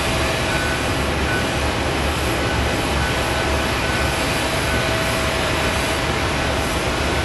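Steady jet aircraft engine noise across an airport, a constant rushing noise with a low rumble and a faint whine.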